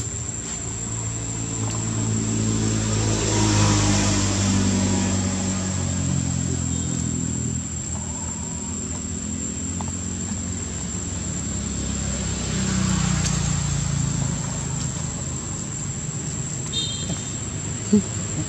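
Motor vehicle engines passing nearby, growing louder to a peak about three to four seconds in and again around thirteen seconds, over a steady high-pitched tone.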